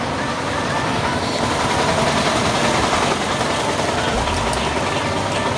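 Engine of an open-sided shuttle vehicle driving slowly past, growing louder towards the middle and then easing off.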